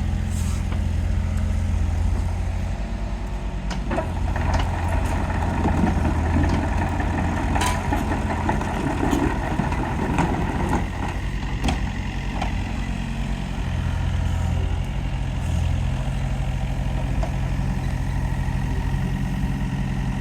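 Wacker Neuson 50Z3 mini excavator's diesel engine running steadily. From about four to eleven seconds in, a louder, busier noise joins it, with a few sharp knocks.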